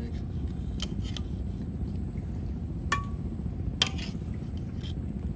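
A steel serving spoon clinking against a metal pan and plates about four times, one strike ringing briefly, over a steady low rumble.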